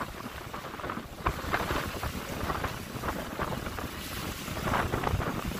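Small lake waves washing in over a shallow, rocky shoreline in an uneven wash and splash, with wind buffeting the microphone.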